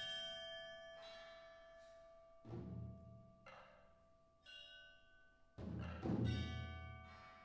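Percussion quartet playing a sparse passage: struck metal and mallet-keyboard tones ring on for seconds. Deep drum strokes come in about two and a half seconds in and again near six seconds.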